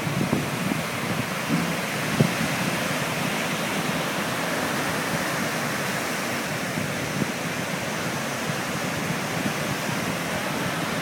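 Surf breaking and washing up a sandy beach: a steady rushing.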